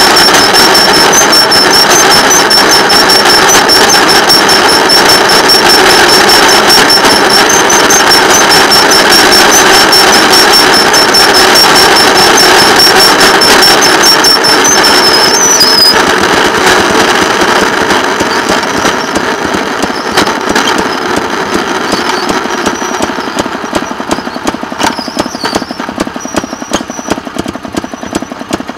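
Engine of a railroad motor car (speeder) running with a dense rapid clatter as it rolls along the track, with a thin high whine over it for the first half. About halfway through it eases off and gets quieter, and near the end it settles into separate, regularly spaced ticks.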